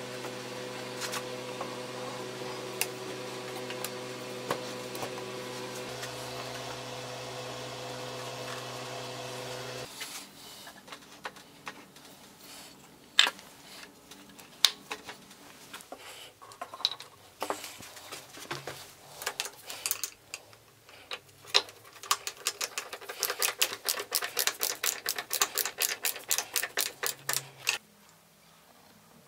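A steady hum that cuts off abruptly about ten seconds in. It is followed by scattered clicks and knocks of a screwdriver and wooden mounting clips being worked at the motor's feet, and several seconds of rapid, even clicking near the end.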